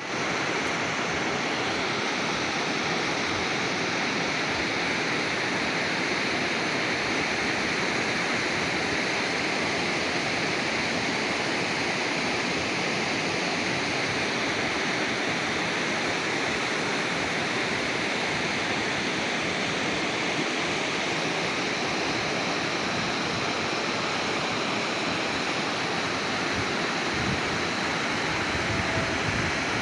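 Flowing water rushing steadily, an even unbroken hiss with no pauses.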